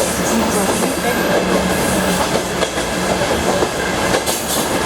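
Passenger train running at speed, its carriage wheels clicking over rail joints (clickety-clack) over a steady rolling rumble.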